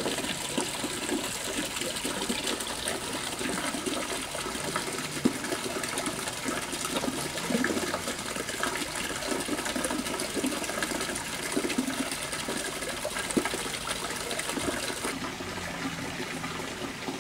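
Hot spring water pouring from a stone spout and splashing into a rock-lined open-air bath, a steady rush of running water. About 15 s in the sound becomes softer and duller, a different stretch of water.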